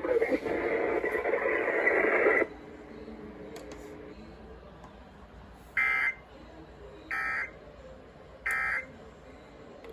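Weather-radio broadcast audio: a loud, noisy stretch of radio sound cuts off suddenly about two and a half seconds in. Three short, identical digital data bursts follow, about a second apart. They match the SAME end-of-message code that closes an Emergency Alert System transmission.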